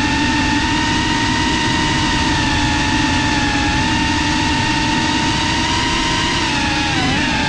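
FPV quadcopter's motors and propellers whining steadily, recorded by the GoPro riding on the drone, over a low rushing of air; the whine dips briefly in pitch and comes back near the end.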